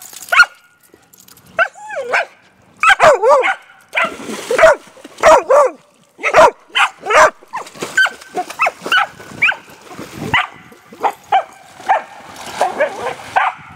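A dog barking and yipping excitedly over and over, in short calls with whines between them.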